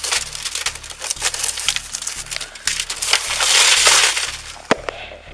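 A car's side window glass being smashed and broken out with a hand tool: a run of sharp clinks and crunches, then a louder spell of crunching, crumbling glass about three and a half seconds in, and one last sharp knock near the end.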